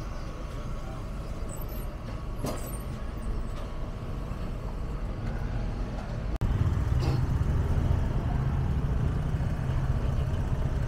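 Low rumbling outdoor background noise, with a few faint clicks, stepping up suddenly about six seconds in.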